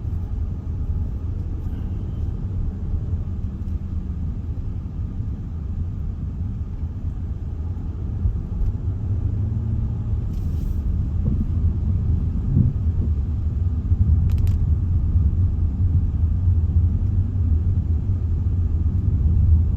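Car driving, heard from inside the cabin: a steady low rumble of engine and road noise that grows somewhat louder about halfway through.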